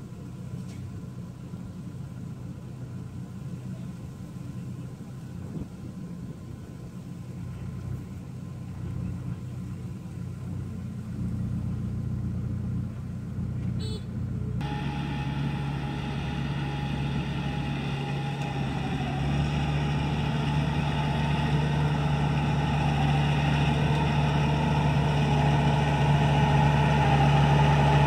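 Farm tractor's diesel engine running at a steady low rumble. About halfway through it gives way to a Kubota DC-70 rice combine harvester running, a louder engine with a steady hum, growing louder toward the end.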